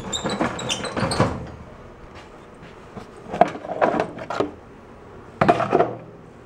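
Handling noise on the snow blower: sharp knocks and rattles in three short bursts, one near the start, one around the middle and one near the end.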